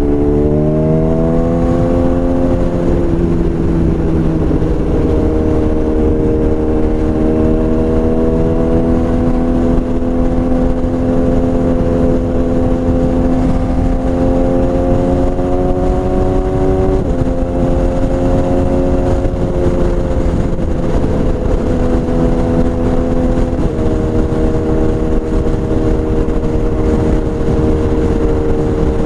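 BMW S1000RR inline-four engine running through a full Akrapovič exhaust, riding under steady throttle. The engine note rises at first, then climbs slowly and drops suddenly three times, as at upshifts.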